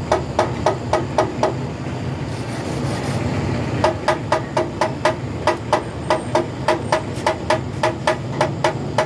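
A hammer tapping metal on a truck radiator tank in quick, even blows of about four a second, each with a short ring. The tapping stops for about two seconds early on, then resumes, over a steady low hum.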